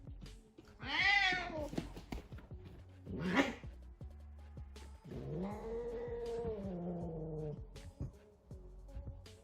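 A cat calling three times: a meow about a second in, a short rising call a little after the 3 s mark, and a long, lower, drawn-out call in the second half.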